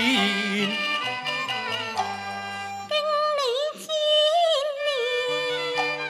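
Cantonese opera music: a male voice holds the last sung word of a line for under a second, then a Chinese instrumental ensemble plays an interlude, its melody led by a bowed fiddle with sliding, wavering notes over sustained low notes.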